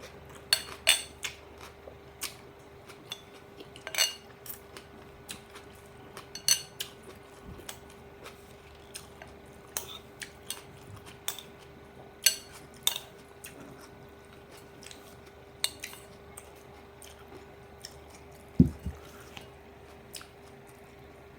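Cutlery clinking and scraping on a plate as a salad is eaten, in scattered sharp clicks over a steady faint hum. A dull thump comes near the end.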